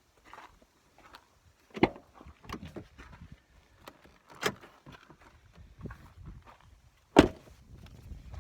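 A pickup truck's door being shut and the truck locked: a few sharp knocks and thuds, the loudest near the end, with footsteps between.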